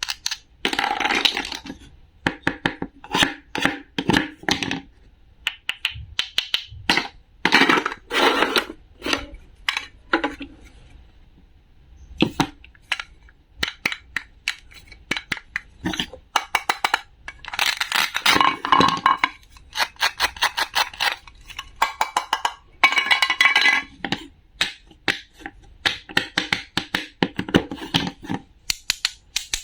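Hard small objects being handled: rapid runs of clicks, clinks and light scrapes in clusters every second or two, some with a short ring.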